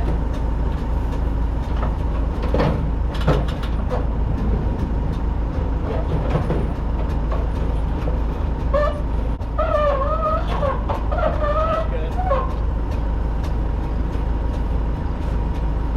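A heavy truck engine runs steadily with a deep, constant hum, and a few knocks come about two to four seconds in. A voice is heard briefly in the middle.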